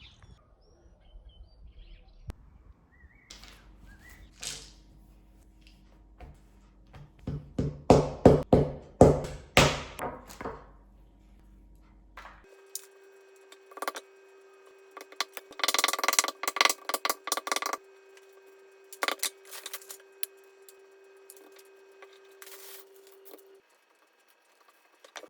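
A series of knocks and clatters of objects being handled, loudest in two clusters, with a steady hum under the second half.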